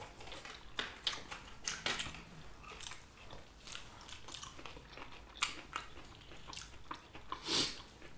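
Biting and chewing sushi, heard as irregular short clicks and smacks of the mouth and food.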